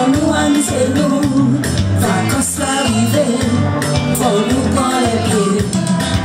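A woman singing into a microphone over accompanying music with a steady bass beat.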